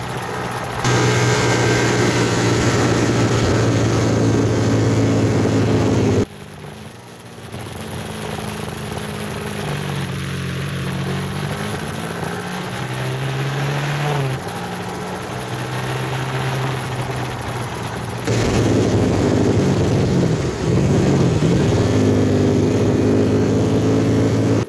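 A vehicle engine running on the move, its pitch rising and falling with changes in speed, over a steady rush of road or wind noise. The sound drops sharply about six seconds in and comes back louder about eighteen seconds in.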